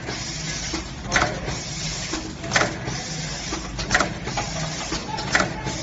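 Automatic pregnancy-test-kit packing machine running, with a sharp mechanical stroke about every second and a half (four times) over a steady low hum.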